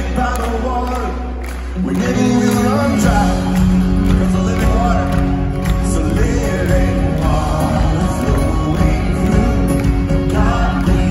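Live band with a male lead singer, electric and acoustic guitars, drums and keyboard, heard from the audience in a large hall. A held low note and chord for about the first two seconds, then the full band comes in under the sung melody.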